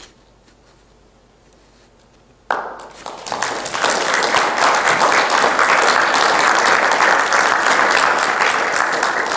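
Audience applauding, starting abruptly about two and a half seconds in and quickly building to full, steady applause.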